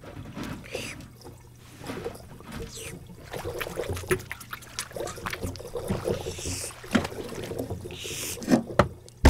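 Cartoon water sound effects from a goldfish tank: a busy run of small splashes, sloshes and drips with a few quick swishes.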